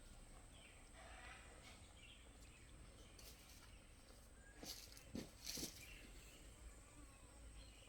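Near silence: faint outdoor background with a steady high-pitched tone, broken by a few brief soft clicks a little past halfway.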